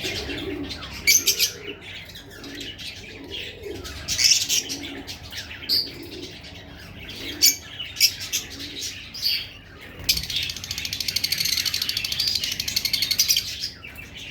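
Fischer's lovebirds chattering with sharp, high chirps. About ten seconds in, they break into a rapid, continuous twittering for a few seconds.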